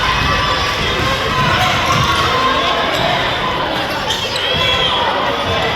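Basketball game in a gym: a ball dribbling on the court amid crowd chatter, with a few short high squeaks about four and a half seconds in.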